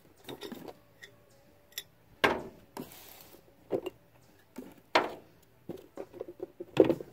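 Irregular light clicks and knocks of painting supplies being handled on a table, with a brief scrape about three seconds in and a quicker run of small taps near the end.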